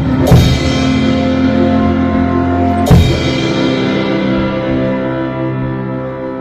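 Closing chord of a CCM worship song held and slowly fading, with a drum kit played along: two hits, just after the start and about three seconds in, ring out over the chord.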